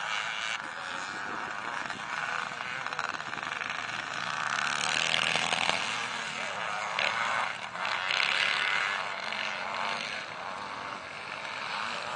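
Several vintage motocross bikes running and revving around a dirt track at once, heard from a distance. The engine noise grows louder about five seconds in and again around eight seconds as bikes come nearer.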